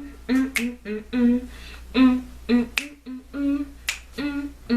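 Regular finger snaps over a short, repeating hummed vocal melody.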